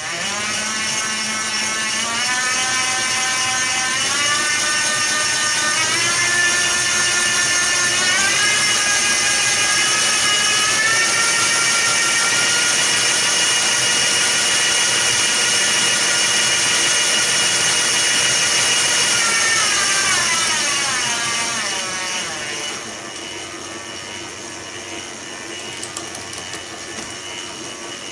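Cyclone 250 W, 24 V bottom-bracket e-bike motor running its chain drive under throttle: a loud, noisy whine that climbs in pitch in several steps over about twelve seconds, holds steady, then winds down about twenty seconds in to a quieter run-down.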